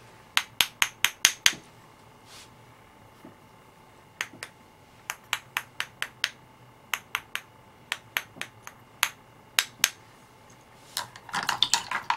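A metal tool drawn again and again across the stiff bristles of a paint-loaded brush, flicking spatters of thinned acrylic paint. It makes short runs of quick, sharp flicks, a few at a time with pauses between, and a denser flurry near the end.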